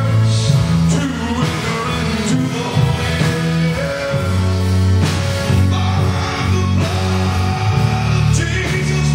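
Live praise-band music: a man singing over a drum kit, with sustained low accompaniment notes and occasional cymbal crashes.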